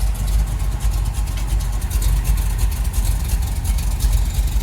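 1975 Chevy C10's engine running with a steady low rumble. Its ignition timing is badly off, the vacuum advance line left unplugged, though it is no longer backfiring.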